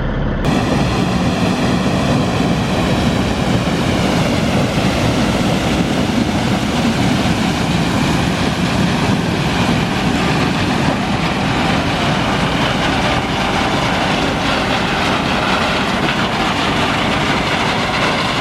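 Combine harvester running in a corn field: a loud, steady mechanical clatter, with a faint rising whine in the first few seconds.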